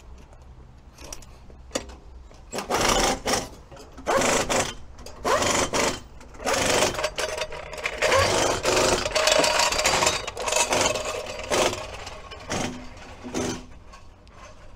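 A red trolley floor jack rattling in bursts as it is wheeled across brick paving.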